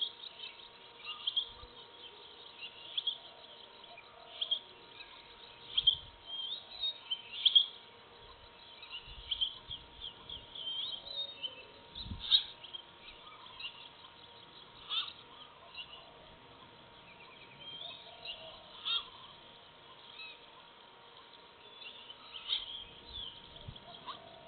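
Birds calling off and on, with many short, high chirps and call phrases repeated throughout. A faint steady hum lies beneath them, and there are a few soft low knocks, the clearest about twelve seconds in.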